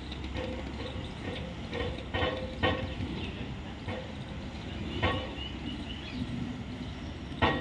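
Express train coaches rolling slowly, a steady low rumble with the wheels clacking sharply over rail joints a few times.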